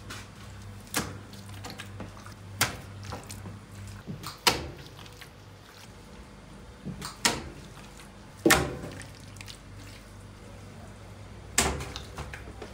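Wet slaps and thuds of marinated raw chicken pieces being handled and dropped into steel trays and a plastic crate: about six sharp ones, irregularly spaced, over a steady low hum.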